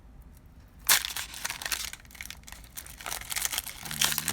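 Foil booster pack wrapper crinkling and rustling as it is handled, with a sharp crackle about a second in.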